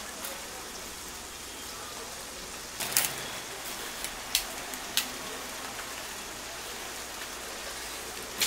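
Steady hiss of rain. Over it come a few sharp clicks and a short rustle in the middle, from umbrellas being opened and handled.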